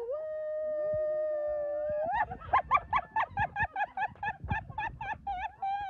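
A person's long held vocal cry, then rapid high-pitched laughter of short repeated bursts, about five a second, from about two seconds in.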